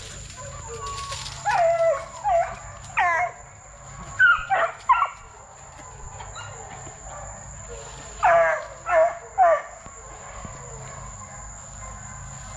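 Young Plott Tan hounds (Plott hound crossed with black and tan coonhound) barking: nine short barks, each falling in pitch, in three quick groups of three, the last group near the end.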